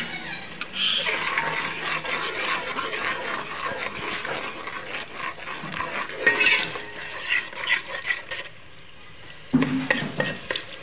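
Perforated steel skimmer spoon stirring and scraping round a steel pot of masala frying in oil, with sizzling and a stream of small metal clicks; yogurt just added is being fried down into the masala. The stirring eases off for about a second near the end, then resumes louder.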